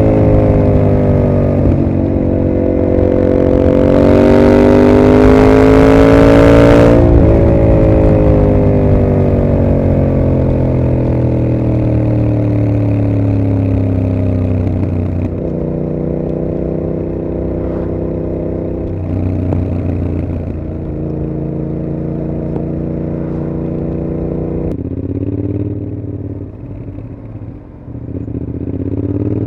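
2021 Yamaha MT-07's 689 cc parallel-twin through an aftermarket Mivv GP exhaust, under way: it pulls up through the revs for a few seconds with a rush of noise, then the throttle closes and the revs fall away. It goes on through several gear changes and steady stretches, and picks up again near the end.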